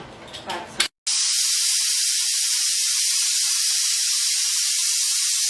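Aluminium pressure cooker on a gas burner venting steam through its weight valve: a loud, steady hiss that starts suddenly about a second in, showing the cooker is under pressure. Before it, a brief clatter of the pot being handled.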